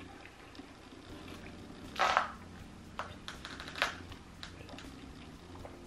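Iced coffee being sipped through a straw from a plastic cup: one short sucking slurp about two seconds in, then a few small clicks and mouth sounds.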